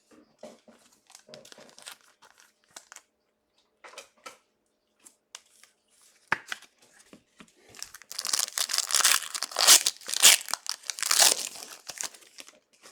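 Light rustling and clicking of trading cards being handled, then, about eight seconds in, a loud few seconds of crinkling and tearing as a card pack wrapper is ripped open.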